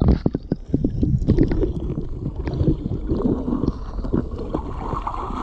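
Handling noise on the camera's microphone: a quick run of knocks in the first second, then uneven rumbling and scuffing as the camera is moved about with its lens covered.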